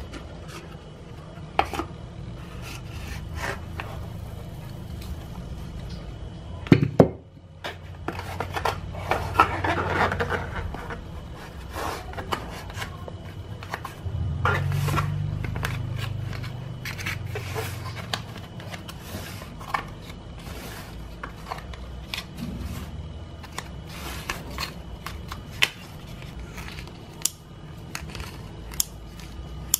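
Pie dough being handled and pressed into a foil pie tin on a plastic mat: scattered taps, clicks and scrapes, with a louder double knock about seven seconds in. Near the end, scissors snip the overhanging dough.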